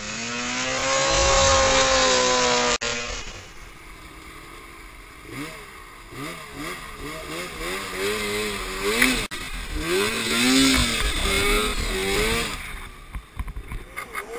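Snowmobile engines running under throttle in deep snow. First one sled is held at high revs; after a sudden cut, another sled's engine revs up and down again and again with throttle blips.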